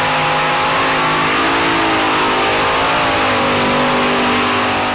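Modified pulling tractor under full power on a pull, its engines running hard over a loud rushing noise, the pitch sagging and rising a little as it goes.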